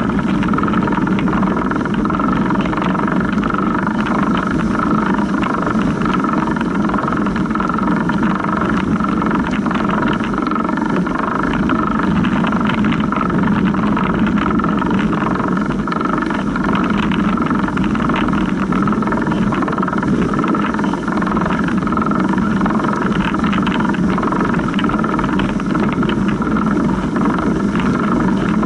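Bicycle chain running over the chain idler of a Surly Big Dummy longtail cargo bike, close to the microphone: a steady running noise full of small ticks and rattles, with the tyres rolling through rutted snow.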